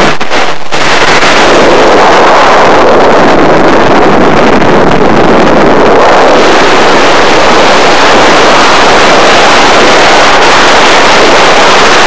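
Loud, steady rush of freefall wind over the microphone of a skydiving camera, dipping briefly just after the start.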